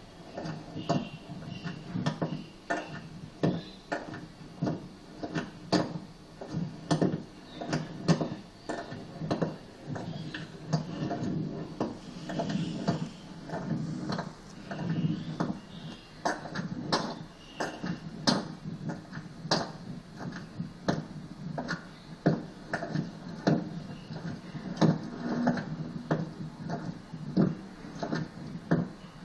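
Irregular sharp clicks and knocks, a few each second, over a low steady hum.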